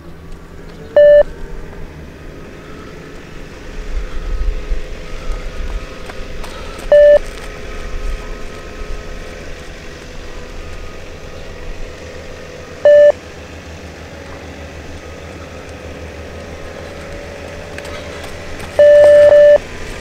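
Multi-stage fitness (beep) test recording: a short electronic beep about every six seconds, each one marking the end of a shuttle run, three times, then a longer beep near the end signalling the end of level 8 and the change to level 9. Wind noise on the microphone runs underneath.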